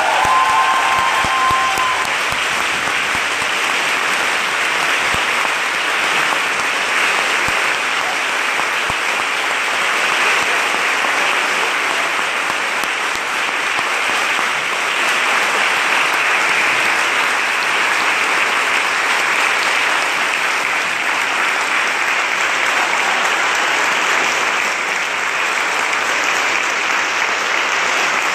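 Large crowd standing and applauding, a long unbroken round of clapping that stays steady throughout.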